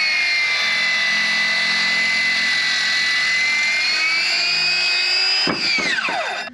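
Ryobi biscuit jointer's motor and blade running with a steady high whine. The pitch sags a little for a couple of seconds as the blade cuts into the timber, then recovers. Switched off near the end, it winds down with a falling whine.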